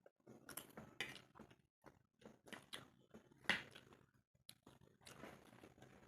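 Close-up eating sounds of Maggi instant noodles and a fried egg being chewed: irregular soft clicks and smacks, the loudest about three and a half seconds in.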